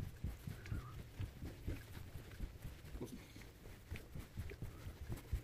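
Soft, irregular low thumps and faint rustling from footsteps and handling of a handheld camera while walking.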